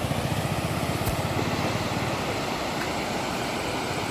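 Motorcycle engine running steadily at low revs, with a fast even pulsing.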